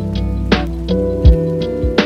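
Background music with a steady beat: kick drum, snare and sustained synth chords.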